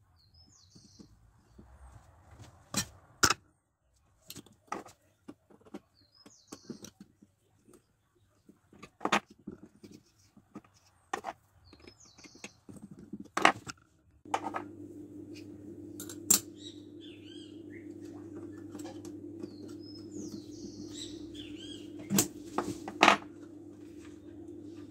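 Metal clicks and knocks from handling a steel engraver's vise as its jaw plate is set and a brass plate is clamped with a T-handle key. Faint high chirps come now and then, and about halfway through a steady low hum starts.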